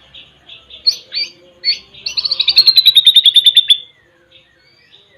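White-rumped shama (murai batu) calling: soft chattering, then a few sharp chirps, then a rapid, slightly falling trill of about two seconds, which is the loudest part.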